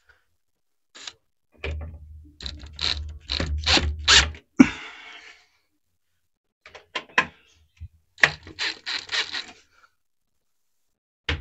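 Clicking and rattling of metal cabinet-door hardware as a concealed hinge's adjustment screw is tightened: a run of sharp clicks lasting about three seconds, a sharp knock, then another run of clicks, with a knock at the very end.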